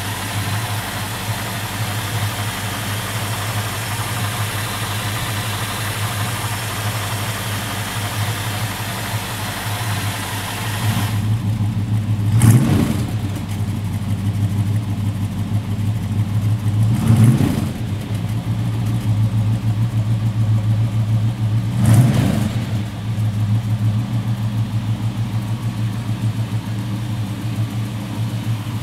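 1969 Dodge Dart's 440 big-block V8 idling steadily, then revved three times about five seconds apart, each blip swelling briefly and falling back to idle.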